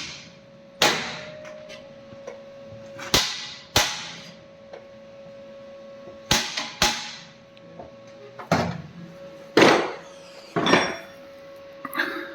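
A hammer striking steel in about ten irregular blows, each ringing briefly: knocking seized leaf-spring suspension parts loose.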